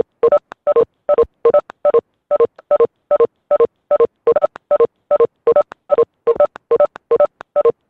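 Choppy, glitching stream audio: a short fragment of voice-like sound repeats as clipped, identical tone-like blips, about three a second, with dead silence between them. This is typical of a web-conference audio dropout or stutter.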